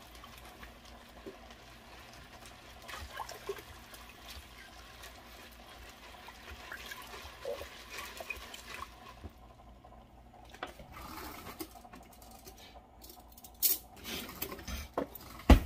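A black plastic spoon stirring red beans in broth in a pressure cooker's inner pot, the liquid sloshing and swirling. A couple of sharp knocks near the end.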